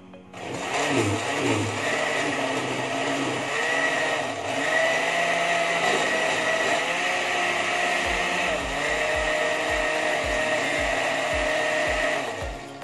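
Countertop blender running, puréeing boiled squash with malunggay (moringa) leaves. It starts just after the beginning, runs steadily for about twelve seconds with its pitch shifting a little as the contents churn, and stops near the end.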